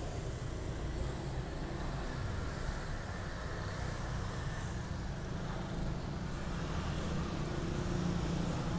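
A steady low hum with a faint, even background noise; no welding arc.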